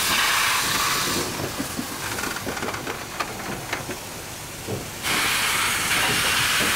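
Alco Type 70 steam locomotive letting off steam with a loud hiss near the driving wheels. The hiss drops away about a second in, leaving a stretch of light clicks and knocks, then comes back loudly about five seconds in.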